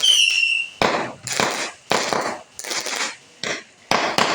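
Firecrackers going off in a string of sharp bangs, about two a second and unevenly spaced, with a short high whistle at the start.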